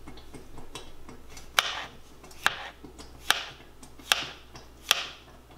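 Paring knife slicing a white button mushroom on a plastic cutting board: five sharp taps of the blade on the board, a little under a second apart, each with a short scrape after.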